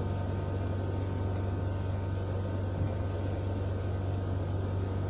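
Steady low electrical mains hum with a faint even hiss, and one faint knock about three seconds in.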